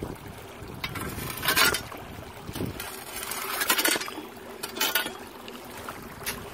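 Creek water running over a gravel streambed, with wind on the microphone and a few short, louder rushes of noise.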